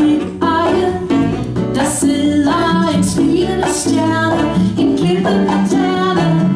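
Live band playing a silly children's song: singing over acoustic guitar, bass and percussion, with a steady beat.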